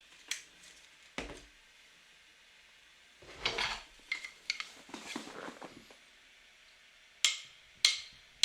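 Small hard objects being handled: a series of separate sharp clicks and short clattering rattles, with quiet gaps between them.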